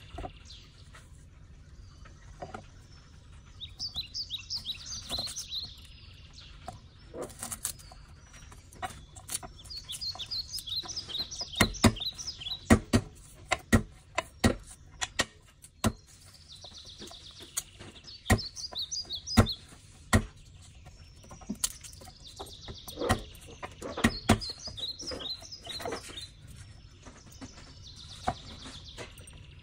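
Small birds chirping in repeated short high phrases. Over them come sharp knocks and taps on a wooden cutting board, loudest in two clusters, as a garlic bulb is broken into cloves and a knife starts on a tomato.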